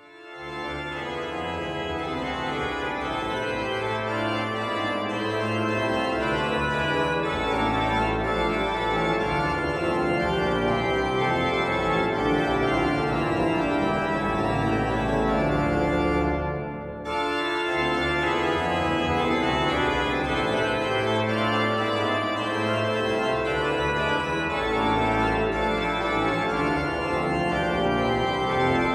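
Pipe organ playing slow, sustained chords, with deep pedal notes coming in and out and a brief break about two-thirds of the way through.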